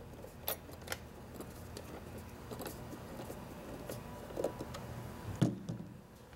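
Small clicks and rattles of a Torx screwdriver turning screws into a plastic instrument cluster housing, with a louder thump about five seconds in.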